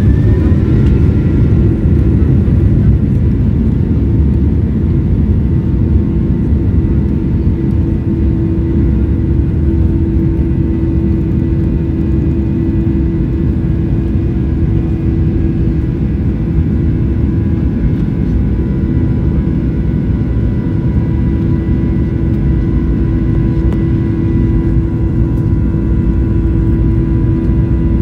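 Jet airliner's engines running at steady high thrust with a constant whine over a heavy rumble from the wheels on the runway, heard from inside the cabin during the takeoff roll.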